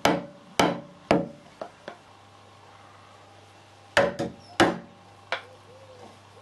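Wood chisel being struck down into cherry wood, giving sharp knocks about half a second apart: three loud strikes and two lighter taps, then after a pause three more loud strikes and a lighter tap.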